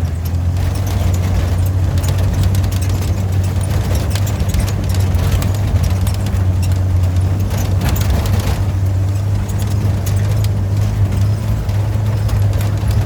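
Off-road vehicle engine running steadily at low speed in a low gear, with loose rattling and clicking from the vehicle, thickest around the middle.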